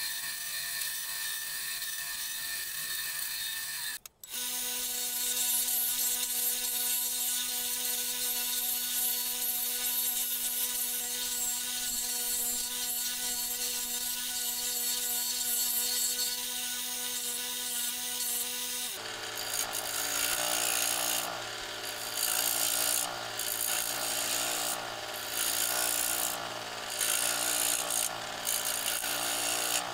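A small bandsaw runs, cutting a teakwood wheel blank round. A sudden change brings in a disc sander's steady motor hum with the rasp of the wheel's edge being sanded against the disc. About two-thirds of the way through, a scroll saw takes over cutting out the wheel's centre, its sound swelling and fading in regular pulses.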